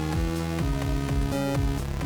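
Electronic background music: synth notes changing several times a second over a bass line.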